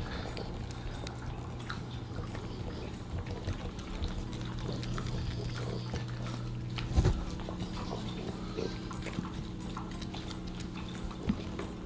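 Small dog chewing a piece of beef jerky, with wet chewing and mouth sounds, and dog claws ticking now and then on a hardwood floor. A steady low hum runs underneath, and there is one thump about seven seconds in.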